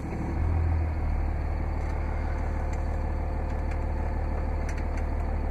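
Cummins 5.9 L 24-valve turbo diesel inline-six idling, heard from inside the cab; about half a second in its low rumble grows louder and stays there as the exhaust brake is switched on.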